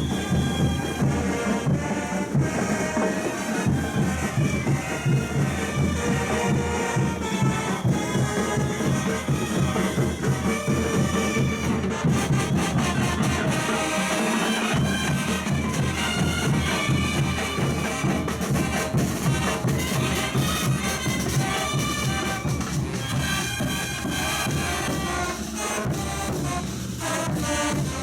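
Traditional Bolivian parade music: wind instruments playing held, overlapping melody lines over a steady drumbeat.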